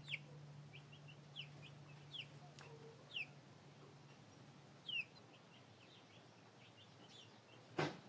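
Chicks peeping: scattered short, high, falling cheeps. A single sharp knock near the end is the loudest sound.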